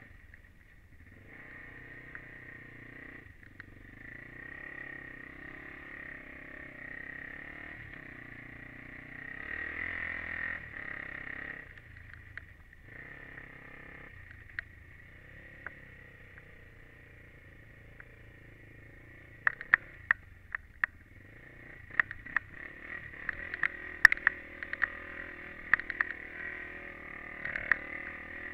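Honda TRX400EX quad's single-cylinder four-stroke engine running and revving, heard through a helmet camera, louder for a couple of seconds about a third of the way in. From about two-thirds of the way in, sharp clicks and knocks sound over the engine.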